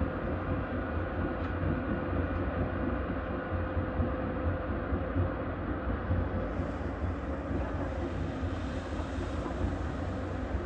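Hyundai R215L SMART X Plus excavator's diesel engine running steadily, a deep rumble with a steady tone through it.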